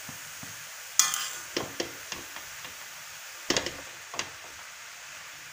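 Metal spatula scraping and knocking against a metal kadhai while stirring grated carrots, over a faint steady sizzle as the carrots' water cooks off. The loudest scrape comes about a second in, with another cluster of knocks about three and a half seconds in.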